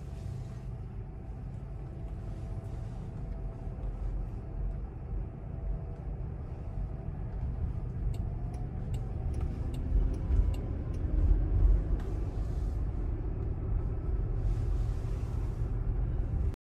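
Cabin road noise inside a moving Jaguar I-PACE electric car: a steady low rumble of tyres on the road with no engine sound, growing a little louder for a few seconds past the middle. A few faint clicks sound partway through.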